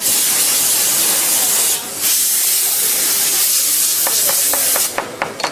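Loud hiss of a pressurised spray in two long blasts, with a short break about two seconds in, stopping near the end. A quick run of regular clicks, about four to five a second, starts about four seconds in.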